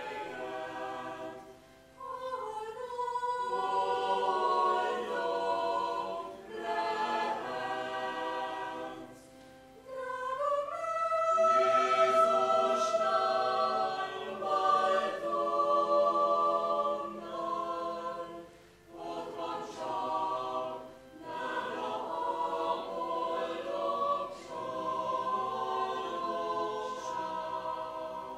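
Mixed church choir of men and women singing in several voices, in long phrases with short breaks between them.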